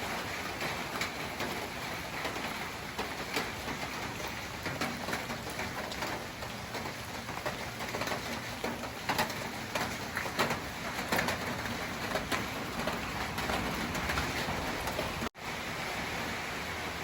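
Steady hiss of rain, with a dove cooing.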